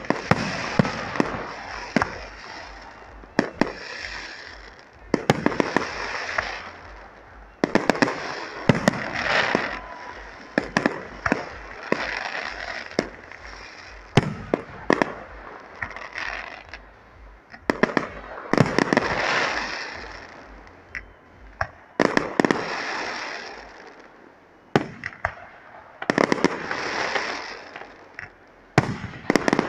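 Aerial firework shells bursting in a display, sharp bangs coming in quick volleys every few seconds. Each volley is followed by a lingering hiss and crackle as the stars burn out.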